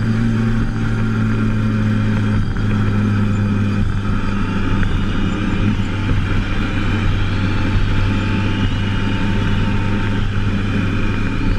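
Engine of a moving road vehicle running steadily at cruising speed, under wind and road noise.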